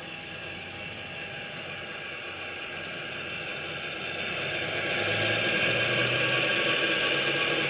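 G-scale model diesel locomotives running on garden railway track, making a steady mechanical hum of motors, gears and wheels on the rails. The sound grows louder about halfway through as the train passes close.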